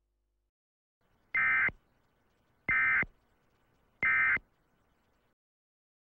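Three short bursts of Emergency Alert System SAME data tones, a rapid two-tone warble, each a fraction of a second long and about 1.3 s apart. These are the end-of-message code that closes an EAS alert.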